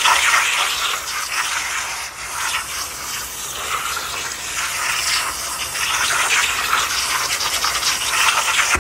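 Kitchen faucet spray running, the water stream splashing over a bowl of raw shrimp shells and heads in a stainless steel sink as they are rinsed, swelling and easing as the stream is moved around the bowl.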